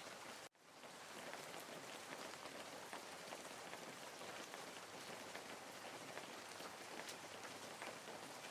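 Faint steady rain noise, a hiss with fine patter, that cuts out briefly about half a second in and then fades back.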